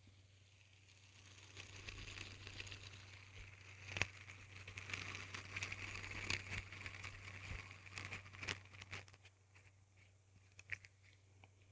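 Hand spinner whirring with a rattling, clicking sound that builds up about two seconds in and dies away after about nine seconds, with a few sharper clicks.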